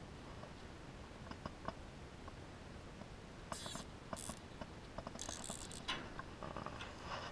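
Faint scattered clicks and a few short scratchy rustles of a wire-mesh crab trap being handled, with two brief louder scrapes about halfway through.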